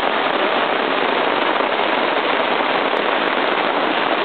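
Heavy downpour: rain falling hard and steadily.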